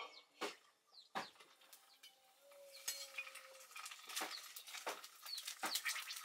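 A metal spoon clinking and knocking against a frying pan several times, with small birds chirping in short high notes through the second half.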